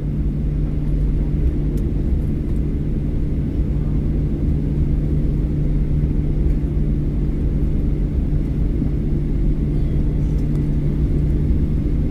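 Steady low rumble and constant hum inside the cabin of a Boeing 737-800 taxiing after landing, its engines at idle.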